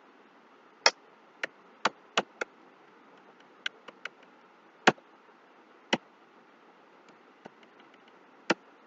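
Computer keyboard keys and mouse buttons clicking: about a dozen sharp, irregular clicks over a faint steady hiss. They come quickly in a cluster at first and more sparsely later.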